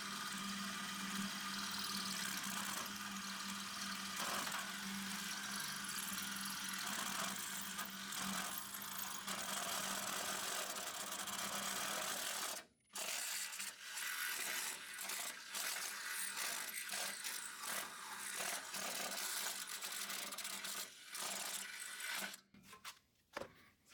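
Power drill boring into a welded-up steel door hinge, the motor running steadily with a constant hum. About halfway through it breaks off abruptly, and the drilling goes on more unevenly, starting and stopping.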